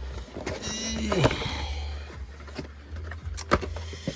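Cardboard and plastic packaging of a sealed trading-card display box being handled and opened: rustling with scattered sharp clicks, a short falling tone about a second in, over a low steady hum.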